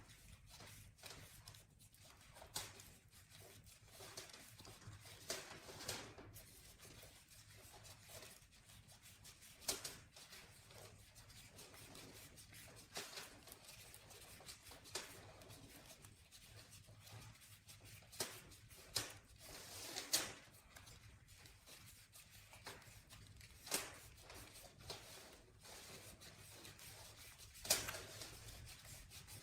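Faint, irregular clicks and light rubbing of small objects being handled, over a low steady hum.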